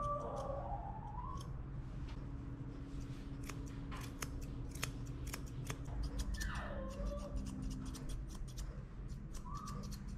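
Steel grooming shears snipping dog hair close to the face, a quick run of sharp separate snips. Twice, a short gliding whine sounds over the snipping, near the start and about six seconds in.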